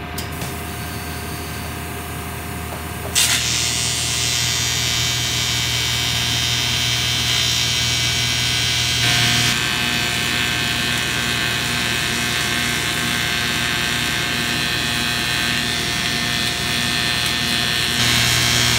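TIG welder: a steady machine hum, then about three seconds in the arc strikes and runs with a loud, even buzzing hiss. From about nine seconds a faint beat pulses about once a second under it.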